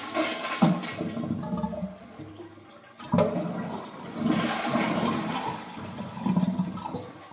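Concealed in-wall toilet cistern being flushed with its water supply shut off, to drain it empty. Water rushes out and fades, then about three seconds in a sharp click sets off a second rush that dies away near the end. There is another click about half a second in.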